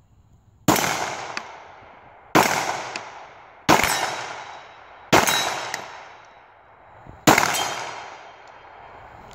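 Five pistol shots from a Springfield XDm 9mm, fired in a steady rhythm about a second and a half apart, with a slightly longer pause before the last. Each crack trails off in a long echo from the surrounding woods.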